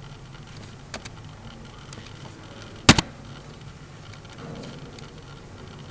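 A sharp double click from a computer mouse about three seconds in, with a fainter click about a second in, over the steady hiss and hum of the recording microphone.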